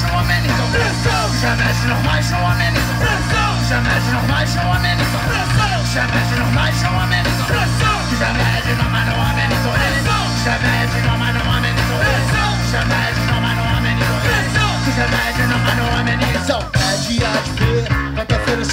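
Live rock band playing electric guitars, bass guitar and drums, loud and steady; about three-quarters of the way in the band breaks into a few short stops and stabs.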